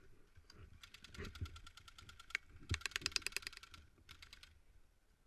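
Airsoft guns firing on full auto: three rapid bursts of sharp clicks, about a dozen shots a second, the middle one loudest and the last one short.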